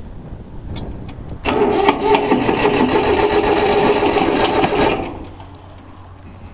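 Electric starter cranking a three-cylinder Yanmar diesel for about three and a half seconds without it firing, a fast even churning whine that starts about a second and a half in and cuts off. The engine does not catch because air is in the fuel lines, which were not bled.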